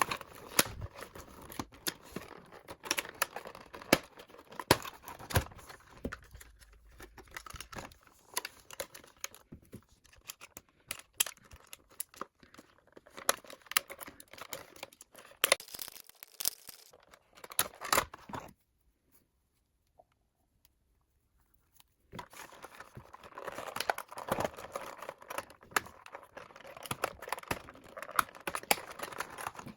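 A doll's box and packing being undone by hand: tearing and crinkling with many sharp clicks and rustles, stopping for a few seconds of near silence a little past the middle before starting again.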